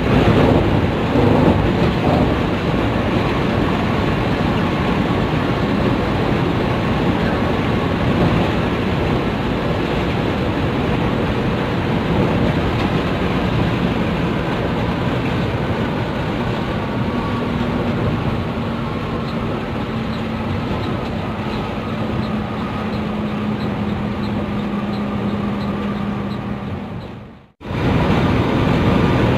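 Intercity coach on the road: steady engine and tyre noise, with a low engine drone growing clearer in the second half. The sound drops out sharply about two and a half seconds before the end, then the same road noise resumes.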